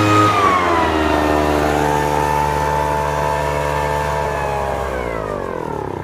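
Gas lawn mower engine running, dropping to a lower speed about half a second in, then winding down and stopping near the end as it is shut off.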